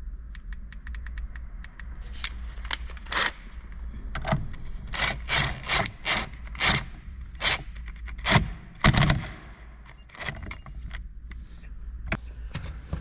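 A power tool driving the steering-wheel centre bolt home in a series of short bursts, with rapid light clicking before them. The loudest bursts come just before the end, as the bolt tightens.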